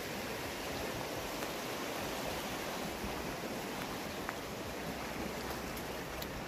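Steady rush of running water, with a low, uneven rumble underneath.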